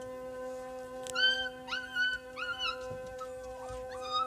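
Siberian husky puppies whining and yipping: several short, high-pitched cries starting about a second in, the first the loudest, and another near the end, over a steady background hum.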